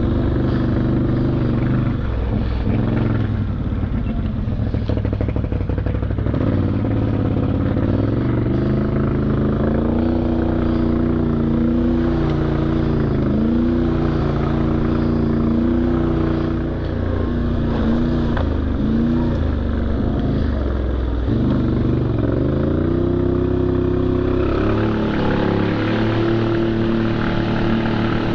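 ATV engine running while riding, its pitch dipping and climbing back several times as the throttle eases off and opens again, over tyre and trail noise.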